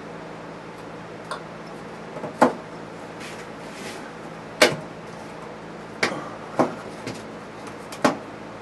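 A strong magnet being set and shifted by hand against the sheet-steel floor pan, giving a handful of sharp clacks a second or two apart, the loudest about two and a half and four and a half seconds in, over a steady low hum.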